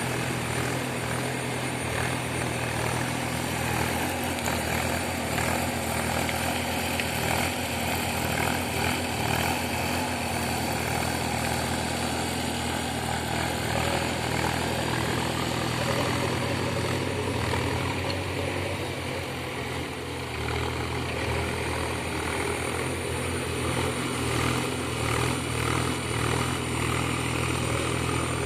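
Diesel engine of a JCB digger running steadily at work, a continuous low drone that eases briefly about two-thirds of the way through.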